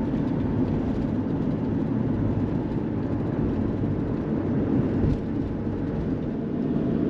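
Steady road and engine noise inside a diesel vehicle's cabin at highway speed, with a brief low thump about five seconds in.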